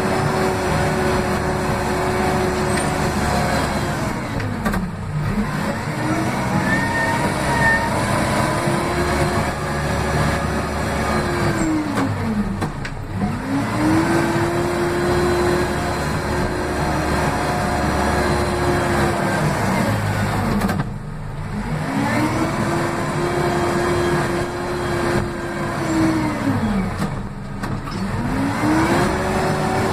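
Case 580M backhoe loader's diesel engine, heard from inside the cab, running at high revs under the throttle. It drops sharply four times and climbs back to full revs each time over a second or two.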